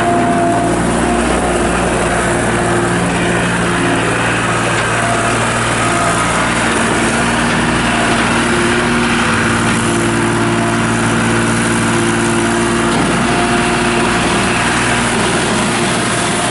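John Deere 240 Series II skid steer loader's diesel engine running steadily, its pitch shifting a few times as the machine works.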